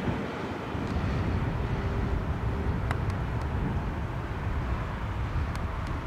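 MBB-Kawasaki BK117 helicopter in flight: a steady low rotor and twin-turbine drone.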